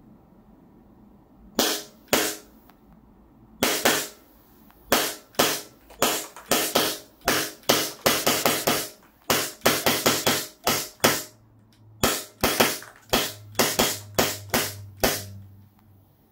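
WE Glock 19 Gen5 gas blowback airsoft pistol firing on gas, each shot a sharp crack with the slide cycling. Two shots, a pause, then a steady string of about three shots a second until the magazine runs dry.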